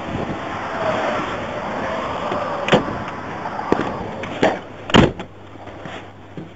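Road traffic passing, then a handful of sharp knocks and clunks, the loudest about five seconds in. After it the traffic noise is quieter and muffled.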